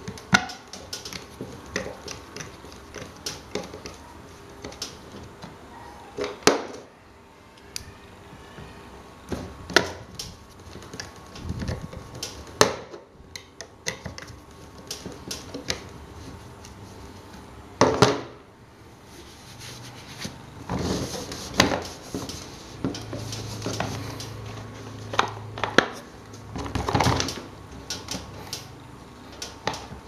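Scattered clicks, taps and knocks of plastic and metal parts of a dismantled table fan's motor being handled and worked with a metal rod, busiest in the last third.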